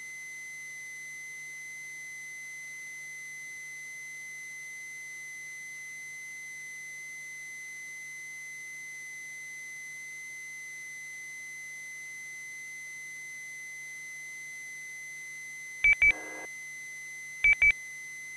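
Quiet open channel on a two-way amateur radio feed: a steady faint high whistle over a low hum. Near the end, two loud short double beeps about a second and a half apart, as a station keys its transmitter before speaking.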